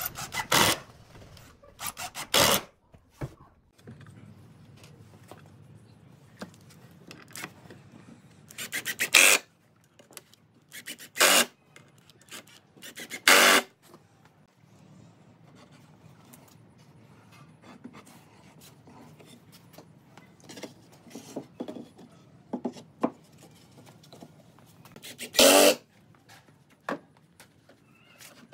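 Cordless drill driving screws into wooden boards in about six short runs, each under a second, the screws grinding into the wood. Faint knocks from the boards being handled come between the runs.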